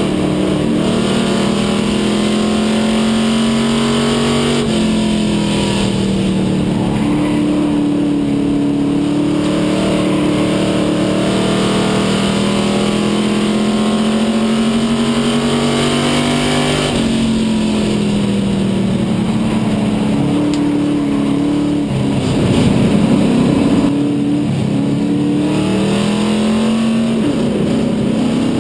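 A stock-car race engine heard from inside its own cockpit at racing speed. Its pitch climbs steadily down the straights and drops sharply as the driver lifts for the turns, about five seconds in and again about seventeen seconds in. A louder, rougher patch lasts about two seconds, some twenty-two seconds in.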